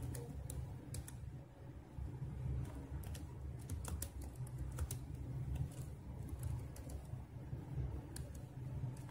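Typing on a computer keyboard: quick, irregular keystroke clicks, some in short runs, over a steady low hum.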